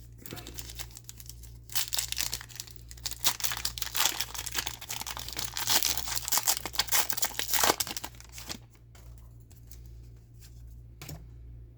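Foil trading-card pack being torn open and crinkled by hand, with the cards then handled; one sharp click near the end.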